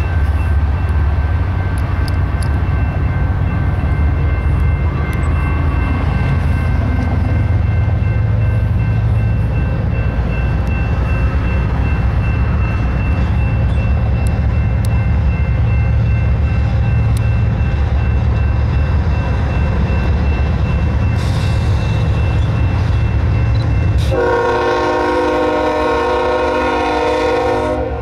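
Approaching BNSF freight train's diesel locomotives with a steady low rumble. Near the end the lead locomotive sounds one long blast of its air horn, a chord of several tones.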